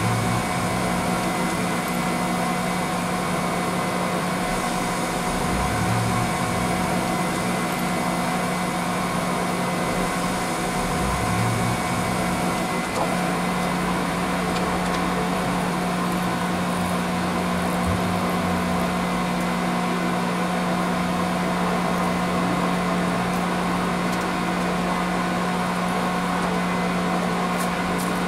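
Milling machine spindle running steadily with a constant hum while a drill is fed into steel spacer blocks, with a few faint knocks along the way.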